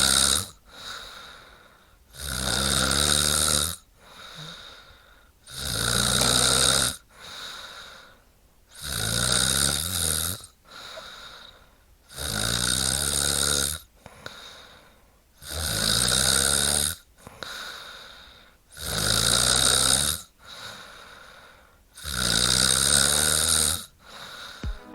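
A woman snoring in a slow, regular rhythm. About seven loud snores, one every three and a half seconds or so, each lasting about a second and a half and followed by a softer breath out.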